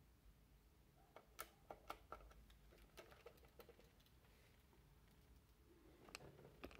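Faint clicks and taps from handling a condominium intercom handset, with a quick run of them about a second in and a few more near the end.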